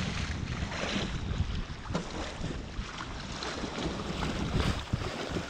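Wind buffeting the microphone: a steady rushing noise with a low rumble.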